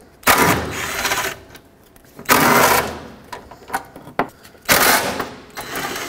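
Cordless impact driver with a 10 mm socket spinning out hood latch mounting bolts in three short rattling bursts, one per bolt.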